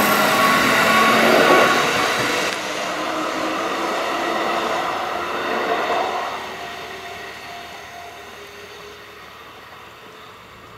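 Red-and-white Kintetsu electric train passing close, with wheel and rail noise and a whine of several steady tones, then the train noise fading away to a faint rumble.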